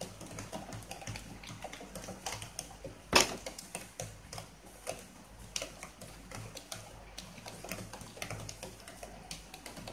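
Thick cheese sauce simmering and popping in a nonstick pan while a wooden spatula stirs and scrapes through it: a stream of small irregular pops and clicks, with one louder knock about three seconds in.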